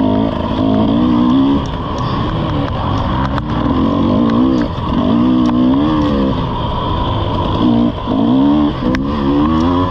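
Off-road dirt bike engine revving up and down as the throttle is worked, its pitch rising and falling again and again. A few sharp knocks cut through, one a little over three seconds in and one near the end.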